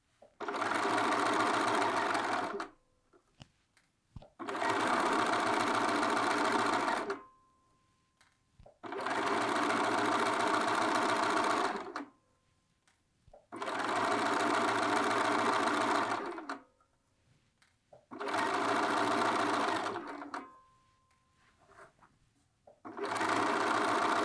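Bernina sewing machine stitching in six short steady runs of two to three seconds each, stopping briefly between them while the fabric is repositioned around the curved neckline.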